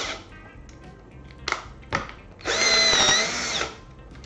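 Stilmax STL5800F cordless drill-driver's motor run in short bursts: a quick rising spin-up at the start, a couple of clicks, then a steady whine for about a second in the second half. It does not bog down while the chuck is gripped by hand.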